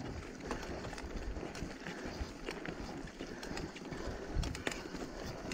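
Mountain bike riding along a dirt singletrack: a steady rumble of the tyres on the ground, with irregular clicks and rattles from the bike over the bumps.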